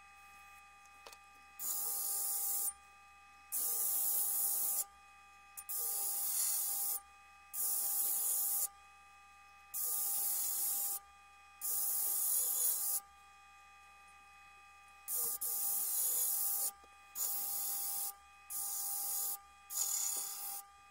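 Edge of a steel damascus cleaver being ground on a benchtop disc sander's spinning 80-grit sanding disc: about ten strokes, each about a second long, with short pauses between them, over a steady motor whine. This is reprofiling the edge to grind out chips.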